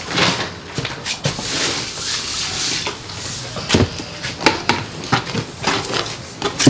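Tools scraping and knocking against a wet plaster-of-Paris bed as a fireplace hearth is laid and levelled, with several sharp knocks in the second half.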